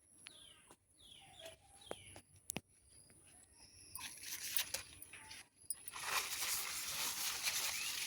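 Birds chirping with short falling calls, then from about four seconds in a louder rustling hiss takes over.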